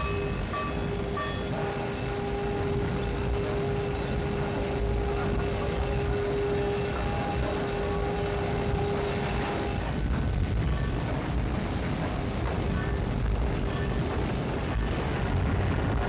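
Heavy cable winches hauling a blast furnace, giving a steady mechanical drone with low rumble. A held whine over it stops about ten seconds in.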